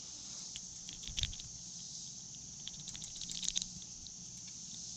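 Steady high-pitched insect buzz, with scattered small taps and rustles, the strongest about a second in and again around three and a half seconds, as a hooked bluegill is handled and the hook is eased out of its mouth.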